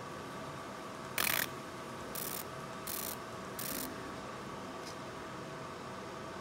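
LASERLine FBL-30 laser marker engraving a logo into a metal pen barrel: four short hissing bursts over about two and a half seconds, the first the loudest, over the machine's steady hum.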